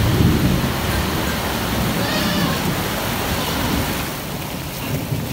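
Heavy tropical-storm rain pouring down in a steady hiss, with low rumbling swells near the start.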